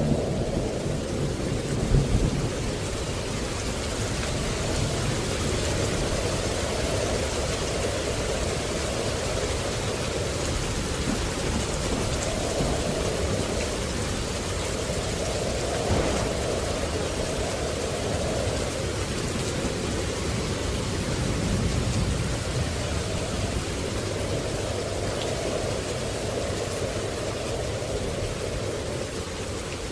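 Steady rain with low thunder rumbling, swelling and fading every few seconds; a sharper jolt of thunder about two seconds in and a brief crack near the middle.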